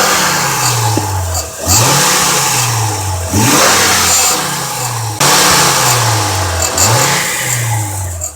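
2003 Honda Accord 3.0 L V6 engine revving up hard several times, each time climbing quickly and then falling away more slowly, with a harsh metallic, bell-like rattle under the load. The owner's leading theory for the rattle is a loose piece inside the exhaust, either broken catalytic-converter honeycomb or flex-pipe lining.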